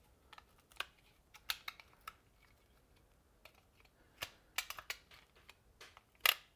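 A knife blade trimming melted plastic burrs from around a hole in a recoil starter's plastic rope rotor: irregular short, sharp clicks and snicks, the loudest near the end.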